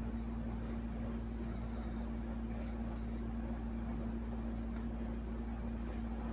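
A steady low mechanical hum with one held tone.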